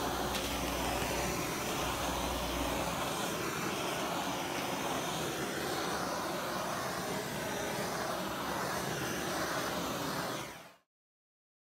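Steady rushing hiss of a handheld heating tool passed over freshly poured epoxy, the usual step for popping surface bubbles; it cuts off abruptly near the end.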